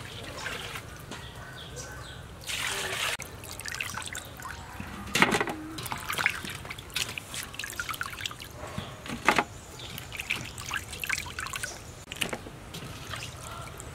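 Hands swishing and rubbing raw shrimp in water in a stainless steel basin: irregular splashing and dripping, with a short louder rush of water about two and a half seconds in and sharper splashes around five and nine seconds in.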